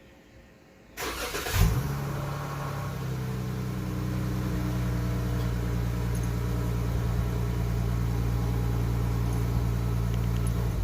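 A 2017 Chrysler 300S engine, breathing through a newly fitted K&N drop-in high-flow air filter, is cranked about a second in and catches with a brief flare. It then settles into a steady idle.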